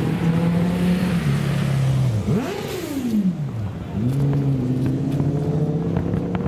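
An engine running steadily, revving up sharply about two seconds in and winding back down before settling to a steady run again.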